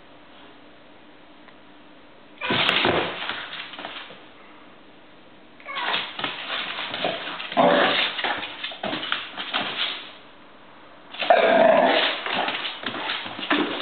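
Miniature bull terrier making rough play noises, growls and yips, in three bouts: a short one a few seconds in, a long one in the middle and another near the end.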